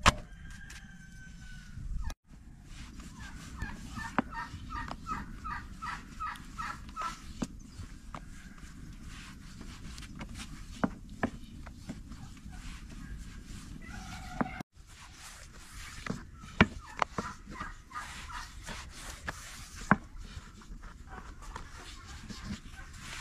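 Poultry calling in the yard: rapid runs of short clucks, once a few seconds in and again near the end. Between them come light wooden knocks and rubbing as flatbread dough is rolled out with a long thin rolling pin on a wooden board.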